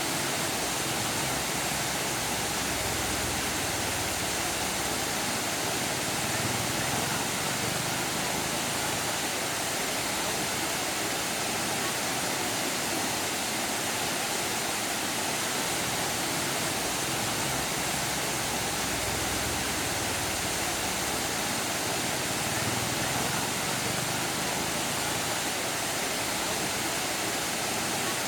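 Waterfall: a steady rush of water falling over rocks, even and unbroken throughout.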